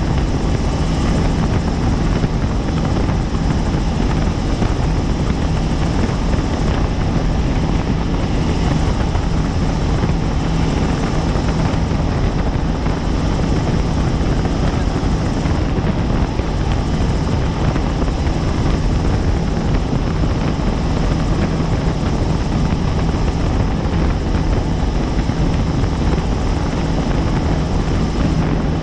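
Helicopter in flight, heard from on board: a steady, loud rotor and engine drone with an even low hum.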